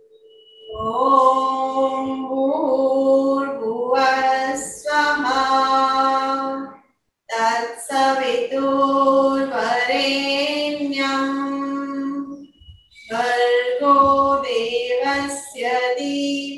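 A woman chanting in a sustained, sung voice, in three long phrases with short breaths between them, about seven and thirteen seconds in.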